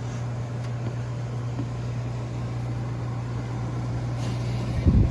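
A 1967 Fedders WeatherWheel window air conditioner running: a steady low hum under the even rush of air from its blower wheel. A brief low thump comes near the end.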